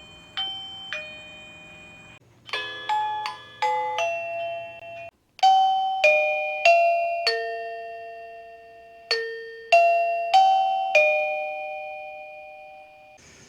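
Electronic doorbell chime from a eufy doorbell system. It plays a two-note ding-dong about half a second in, then a quick run of chime notes, then from about five seconds a slower tune of ringing notes that fade out near the end.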